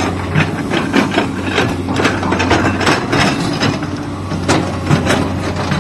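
Excavator's diesel engine running with a steady low hum, overlaid with irregular knocks and clatter, several a second, as it digs.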